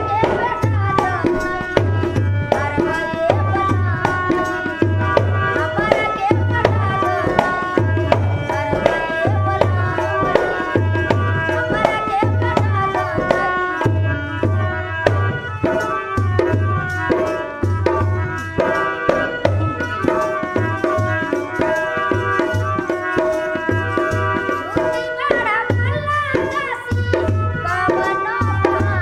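Bhojpuri folk song: a woman singing to a harmonium's held reed chords, with a dholak hand drum keeping a steady beat of deep strokes.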